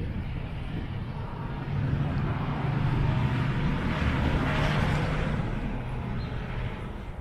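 Low, steady engine rumble of a passing vehicle, growing louder toward the middle and easing off near the end.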